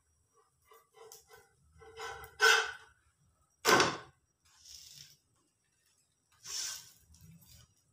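Steel spatula scraping and tapping against a non-stick frying pan while a pancake is turned over, with one sharp, loud knock about four seconds in and a couple of softer scrapes after it.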